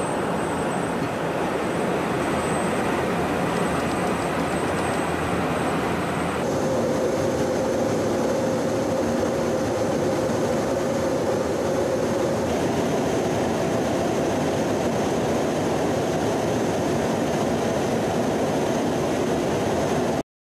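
Steady in-flight noise of a KC-135 Stratotanker heard from inside: its jet engines and the rush of air, a broad even noise. About six seconds in it changes abruptly to a slightly different mix with a faint steady hum, and it cuts off suddenly just before the end.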